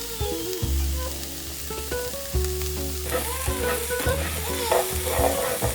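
Diced onion, celery and garlic sizzling in oil in a frying pan, the hiss growing stronger about halfway through, under background music with a steady bass line and melody.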